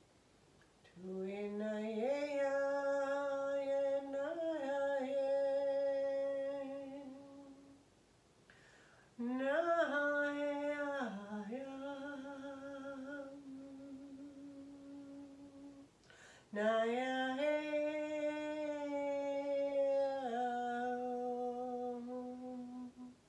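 A woman's wordless voice toning in three long held phrases with short pauses between them, each phrase sliding up into its note at the start.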